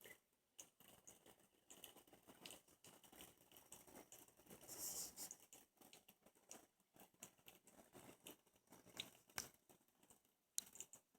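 Near silence, with faint scattered ticks of water droplets spattering from an ultrasonic mist maker in a small bowl of water, and a brief soft hiss about five seconds in.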